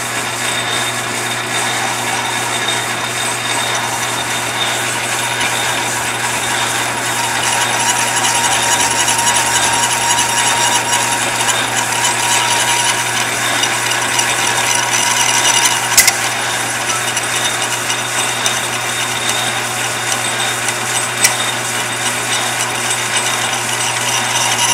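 Metal lathe running with its tool bit taking a light cut on a long brass pin: a steady motor hum under a hissing cutting noise that gets louder for a stretch in the middle. Two sharp clicks in the second half.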